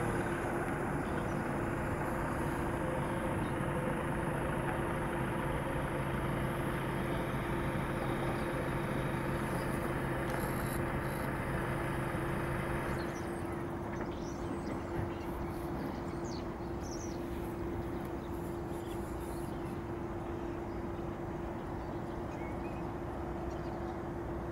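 Steady jet airliner noise on an airport apron: a constant droning tone over a broad hum. A lower engine tone and a high whine drop away about thirteen seconds in, leaving the drone.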